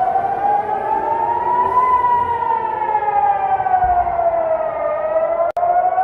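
Civil defense air-raid siren wailing, its pitch rising and falling slowly in a long cycle, sounding the alert for incoming rockets. It cuts out for an instant near the end.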